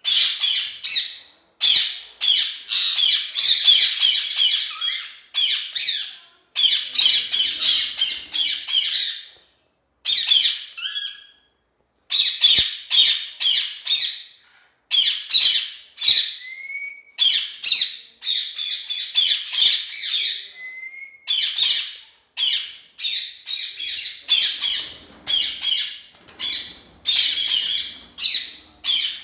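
Caged parrots squawking in rapid, harsh bursts, one after another, with a few brief pauses and a couple of short whistled notes.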